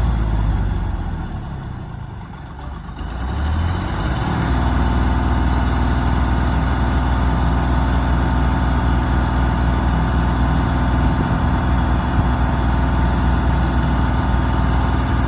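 Deutz diesel engine of a Blaw-Knox PF-150 asphalt paver running. Its note dips briefly, picks up about three to four seconds in, then runs steadily.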